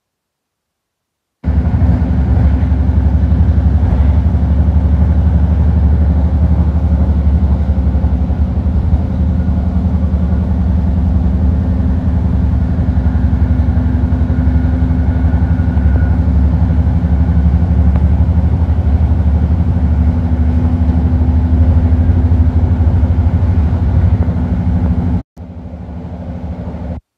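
A BART Fleet of the Future train car running at speed, heard from inside the car: a loud, steady low rumble with a fixed low hum. The sound starts after a second and a half of silence, drops to a quieter level near the end, then cuts off.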